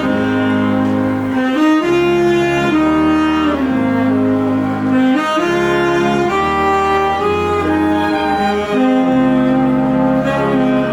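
A live band playing, with sustained wind and brass melody notes over a bass line that steps to a new note about once a second.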